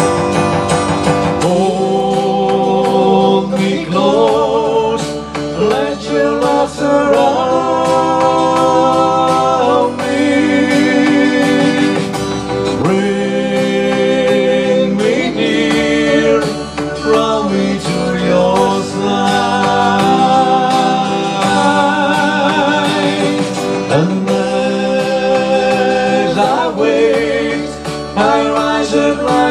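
Two men singing a slow song together into microphones, over instrumental backing with guitar, amplified through a PA.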